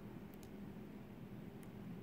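A few faint, sharp metallic clicks of a lock pick working the pins of a pin-tumbler lock cylinder held under a tension wrench, over a low steady hum.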